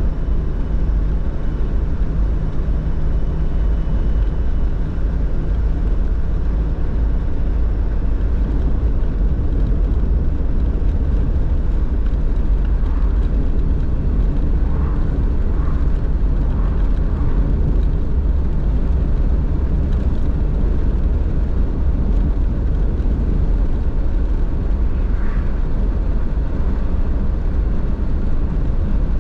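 Car driving along a road: a steady, deep drone of engine and tyre road noise that holds an even level throughout.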